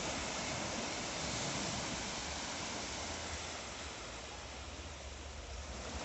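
Small waves breaking and washing up over wet sand around rocks: a steady rush of surf that slowly eases off, then builds again near the end as the next wash comes in.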